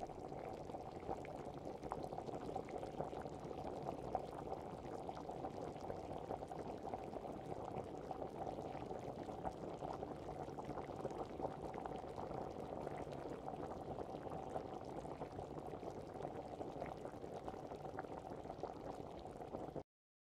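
Coconut-milk stew of banana heart and dried fish simmering in a pan: a faint, steady bubbling with many small pops. It cuts off suddenly near the end.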